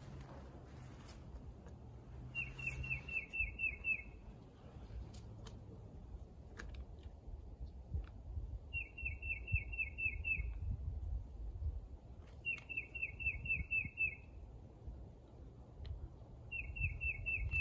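A songbird singing four times: each phrase a quick run of seven or eight down-slurred notes lasting about a second and a half, a few seconds apart. Under it, a few faint clicks and rustles of hammock straps and carabiners being handled, over a low rumble.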